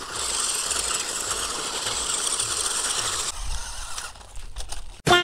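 Toy RC car's electric motor and plastic gears running, a steady rattling whir that cuts off about three seconds in. A brief loud burst comes near the end.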